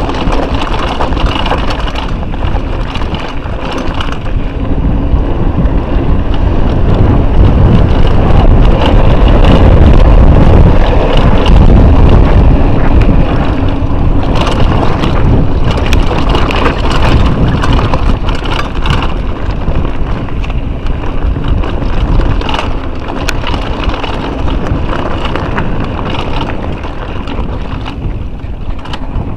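Wind buffeting an action camera's microphone as a mountain bike rides fast down a dirt trail, heaviest about a third of the way in, with the bike rattling and knocking over stones and bumps throughout.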